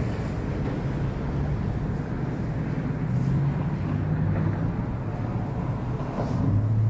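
A power sander runs with a steady hum over a rough rushing noise, its pitch dropping and rising as the pad is pressed onto the car's painted panel. It is sanding old, failed paint flat to prep the panel for repainting.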